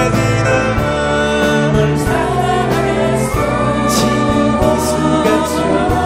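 Live band performance of a Korean folk-pop ballad: male voices singing over acoustic guitars, piano and drums, with cymbal strokes.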